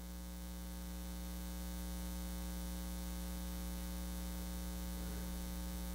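Steady electrical mains hum with a stack of evenly spaced higher overtones, picked up through the church sound system's recording chain, rising slightly at the start and then holding level.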